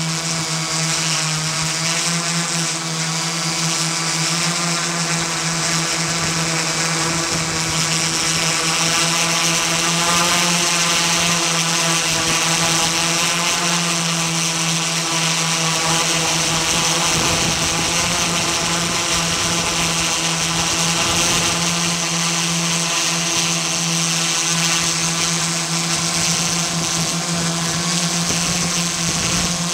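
Multirotor camera drone's motors and propellers running in flight: a steady buzz with a strong low hum and higher tones that waver slightly as the motor speeds shift.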